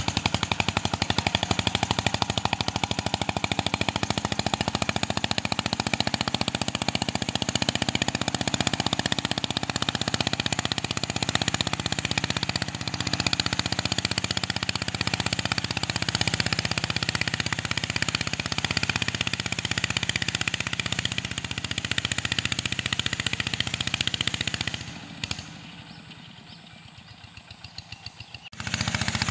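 Two-wheel walking tractor's single-cylinder diesel engine running under load while it pulls a disc plough. It makes a loud, rapid popping exhaust beat, and drops much quieter for about three seconds near the end.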